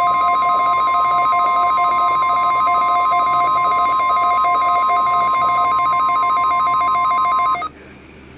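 NOAA Weather Radio warning alarm tone, a loud steady 1050 Hz tone, sounding during the weekly test of the alarm system. It cuts off suddenly near the end, leaving faint radio hiss.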